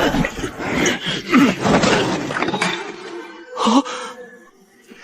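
Groaning and gasping voices over background music, with a short loud cry a little before the end and a steady ringing tone underneath in the last two seconds.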